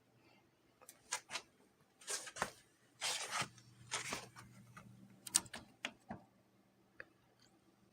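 Irregular short rustles and clicks, a dozen or so scattered over several seconds, over a faint steady low hum.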